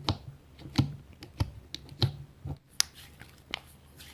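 Light, unevenly spaced clicks and taps of typing, roughly two a second.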